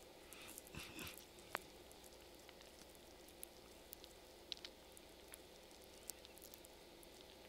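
Near silence: quiet room tone with a few faint, scattered small clicks and soft rustles.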